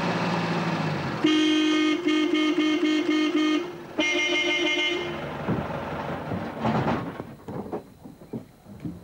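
Vehicle horn honked in a rapid string of short beeps for about two seconds, then one longer blast, with a vehicle engine running under it.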